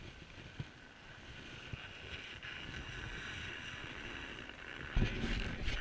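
Skis sliding over groomed snow, a steady hissing scrape, with wind on the microphone. A louder wind buffet hits the microphone about five seconds in.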